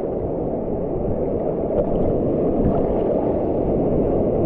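Steady rushing and sloshing of water around rocks and a person standing waist-deep in it.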